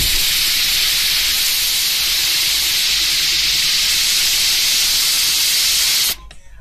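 Stuart S50 single-cylinder horizontal mill engine running fast, with a loud steady hiss of exhaust and no distinct beat. It cuts off suddenly about six seconds in.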